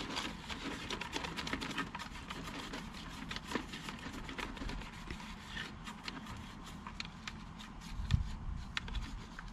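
Gloved hands scrubbing and handling the plastic base of a Thetford RV toilet around its flush valve: irregular scraping and light clicks of plastic.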